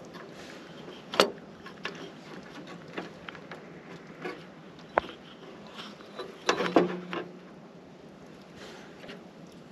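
Scattered hard clicks and knocks from a Wisconsin V4 engine's distributor cap and its spark plug wires being handled: a sharp knock about a second in, a single click about five seconds in, and a loudest cluster of knocks shortly before seven seconds.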